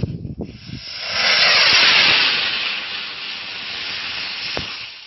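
Homemade two-hole ta-lai, a Thai spinning firework rocket, going off about a second in with a loud rushing hiss that slowly fades over the next few seconds as it rises into the sky. A single sharp click near the end.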